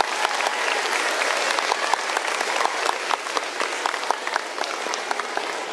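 Audience applauding with many hands clapping, dying down near the end.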